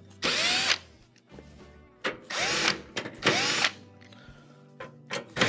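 Cordless drill/driver with a Phillips bit backing out the screws that hold an oven's electronic control board. The motor spins up and down in three short bursts, and a fourth starts near the end.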